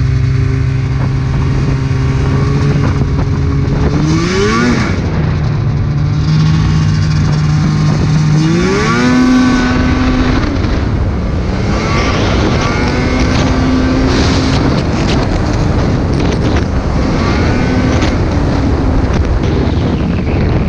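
Snowmobile engine running at a steady pitch, then revving up sharply about four seconds in and again about nine seconds in, with shorter rises and falls after that.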